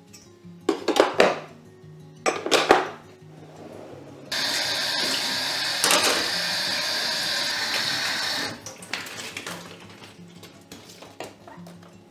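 Kitchen utensils clattering in two short bursts, then a loud steady rushing sound for about four seconds that starts and stops abruptly, over soft background music.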